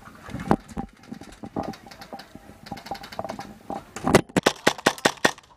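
Airsoft gunfire: scattered sharp shots, then about four seconds in a rapid string of shots, roughly eight a second, lasting just over a second.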